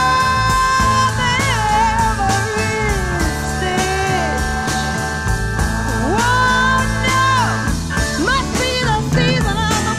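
Psychedelic rock band with organ, electric guitar and drums playing over steady held chords, with a melodic line that bends and slides in pitch, sweeping up several times in the second half.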